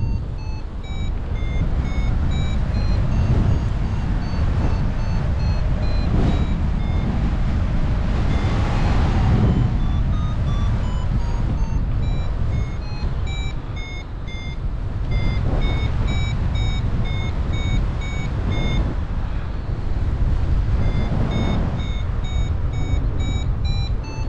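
Paragliding variometer beeping in short repeated tones that step up and down in pitch, the sound of the instrument signalling climbing air, over a steady rush of wind on the microphone that swells in a few gusts.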